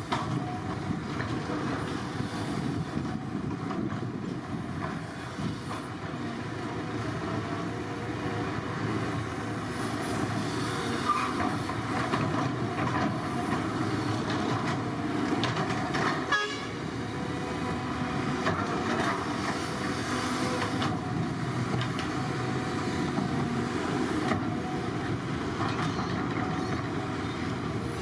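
Excavator's diesel engine running steadily, with a brief dip in level just past halfway.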